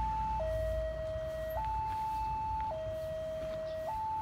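Railway level-crossing warning alarm sounding, a steady two-tone signal that switches between a lower and a higher pitch about every second, warning of an approaching train.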